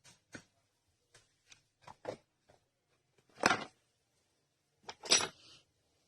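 Short scrapes and taps of a soldering iron and small tools against a phone's circuit board while the memory card connector's pins are soldered, with two louder scrapes about three and a half and five seconds in.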